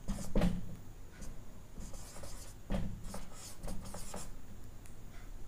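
Marker pen writing on a whiteboard: a run of short, irregular strokes as letters are drawn.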